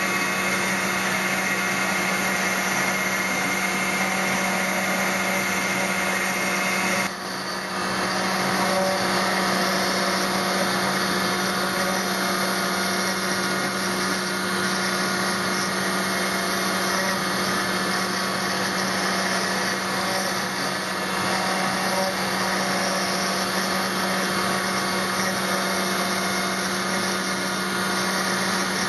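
Spindle of a Newing Hall Pantocut CNC machine running steadily as its small cutter carves Portland stone, a constant whine over the grinding of the bit. The sound drops briefly about seven seconds in, then carries on the same.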